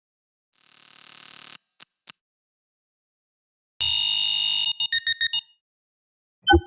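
Synthesized sci-fi sound effects played one after another. A high electronic tone swells for about a second and ends in two short blips. After a gap comes a steady alarm-like buzz that breaks into about six quick beeps, and a short ping sounds near the end.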